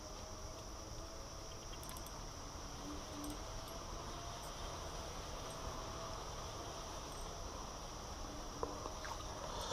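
Faint, steady high-pitched drone of insects in the riverside vegetation, with a few soft ticks.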